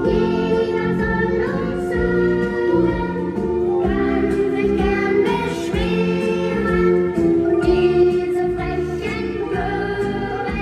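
Music played by a DJ: a song with singing voices over a steady beat.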